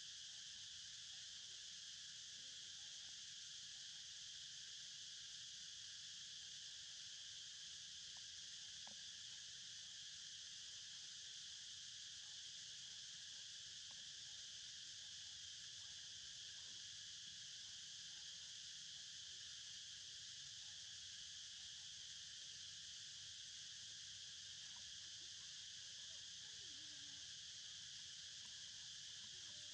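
Faint, steady chorus of forest insects: a continuous high-pitched drone that does not break.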